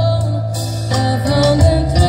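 Live band music: a woman sings into a microphone, holding one long note before moving into a new phrase about halfway through. A keyboard and a drum kit play behind her.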